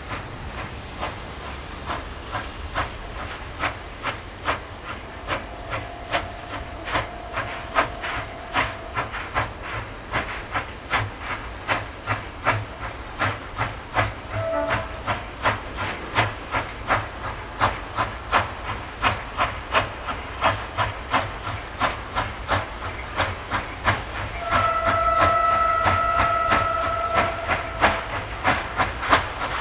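JS-class steam locomotive working hard as it starts a very heavy coal train: sharp, evenly spaced exhaust beats that quicken steadily as the train gathers speed, over a low rumble. A steam whistle sounds one long blast about a quarter of the way in, a short toot midway, and a louder, fuller long blast near the end.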